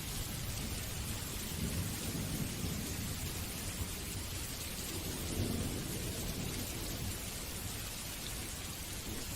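Steady rain falling, an even hiss, with low rumbles of thunder rising twice, about two seconds in and again past the middle.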